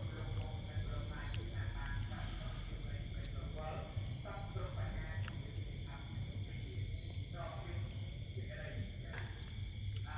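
Crickets chirping in a steady, rapid pulsing trill, with a low hum underneath.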